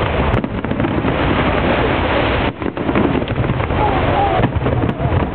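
Fireworks display: a dense, continuous crackle and rumble of bursting fireworks, with a few voices heard underneath.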